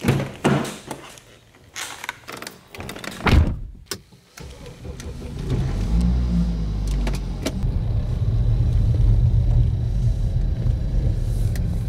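Car door opened and shut with a loud thud, then the car's engine starting about five seconds in and running with a steady low rumble as the car pulls away.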